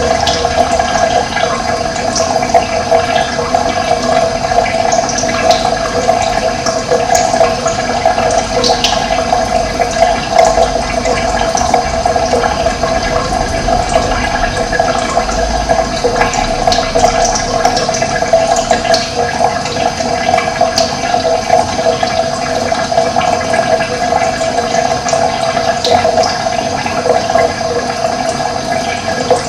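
Running water with a steady rush, and short high bird chirps scattered over it.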